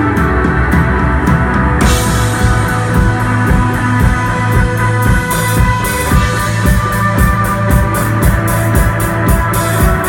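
A rock band playing instrumental psychedelic rock live, on electric guitar, bass and drums, with a cymbal crash about two seconds in and steady cymbal strokes throughout.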